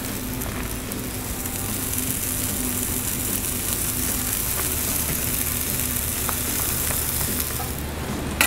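Quesadilla and tortillas frying on a hot flat-top griddle: a steady sizzling hiss, with a low steady hum underneath.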